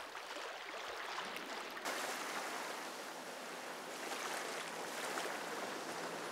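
Faint water lapping at the shore, then about two seconds in a steady rush of water and spray as an aluminium fishing boat with an outboard motor runs fast across choppy water, with a faint low steady engine hum underneath.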